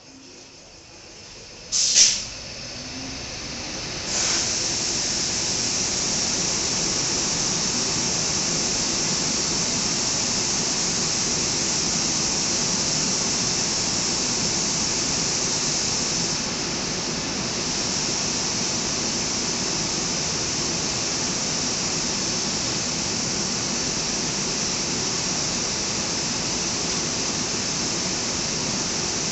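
WAP-7 three-phase electric locomotive starting up: a single sharp blast about two seconds in, then from about four seconds a steady, loud rushing hiss of its cooling blowers running.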